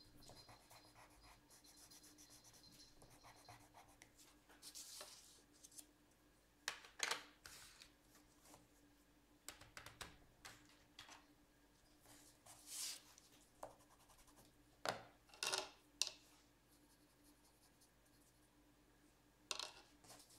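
Coloured pencil scratching faintly on paper, followed by scattered light clicks and knocks as the pencils and paper are handled.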